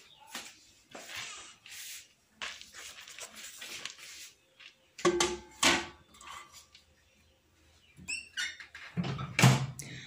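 Handling sounds of a paper-towel-covered bowl being set into a microwave oven: light rustling and scraping, then two sharp knocks as it goes onto the turntable about halfway through. Near the end the microwave door is pushed shut with a low thump.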